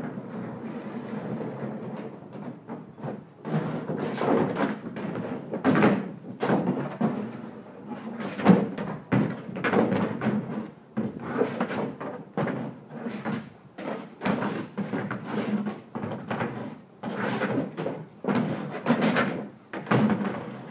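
Rigid plastic kiddie pool being knocked, dragged and tipped about on concrete by a dog: a long run of irregular hollow plastic thumps and scrapes.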